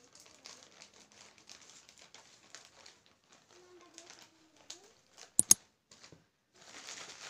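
Faint rustling and crinkling of plastic packaging with scattered light ticks, then a sharp double mouse click about five and a half seconds in as the on-screen like button is pressed, followed by a short burst of rustling near the end.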